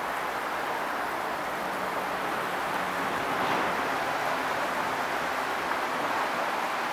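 Steady rushing background noise with no distinct events, a faint low hum underneath.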